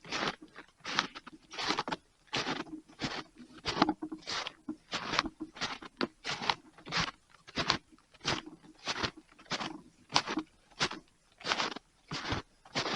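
Footsteps crunching in snow at a steady walking pace, about three steps every two seconds.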